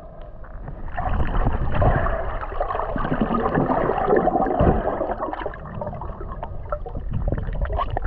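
Water sloshing and gurgling right around an action camera as a swimmer moves through a freshwater spring, with many small crackles over a low rumble.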